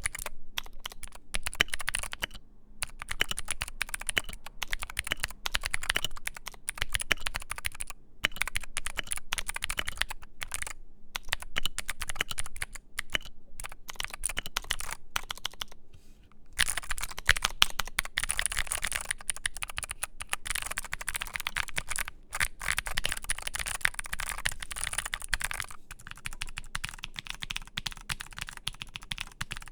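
Typing on a modded Keychron Q3 mechanical keyboard with filmed and lubed Gateron Phantom Blue clicky switches: fast, continuous keystrokes broken by a few short pauses.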